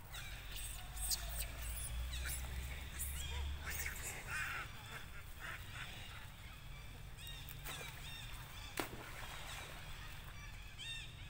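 Animal calls: many short, high calls, some arched and coming in quick runs, with a sharp click about nine seconds in.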